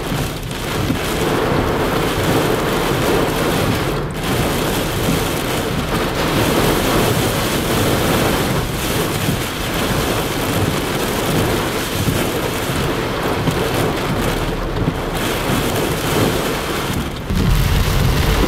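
Heavy rain and squall-line wind from a severe thunderstorm beating on a car, heard from inside the cabin as a dense, steady roar. About 17 seconds in, a deeper rumble of the car's engine and tyres joins in as the car starts moving.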